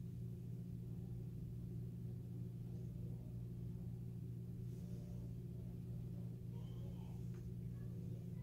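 Steady low hum of room tone, with a faint click about seven seconds in.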